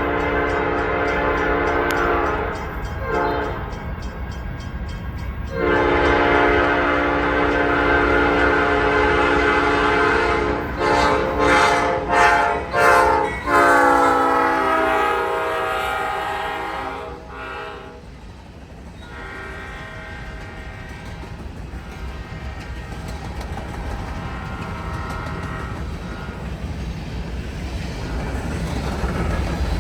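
A CSX GE CW44AC locomotive's five-chime Nathan P5 air horn salutes with long blasts and then a quick run of short toots. A final held blast drops in pitch and fades as the locomotive passes. After that the train runs by with a steady rumble and clickety-clack of the rail cars, growing louder near the end.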